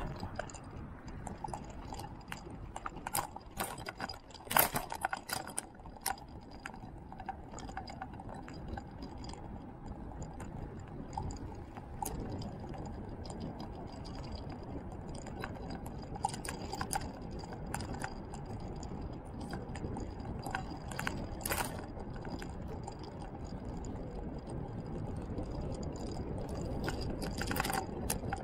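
Riding noise on an asphalt road: a steady rumble of tyres and wind, with irregular clicks and rattles throughout, the sharpest about 4.5 s in and again near 21.5 s and 27.5 s.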